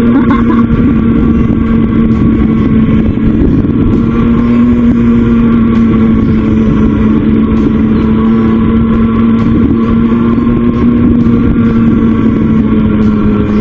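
Raptor 87 pocket bike's small engine held at steady revs while engine braking downhill, one steady note that eases slightly lower near the end.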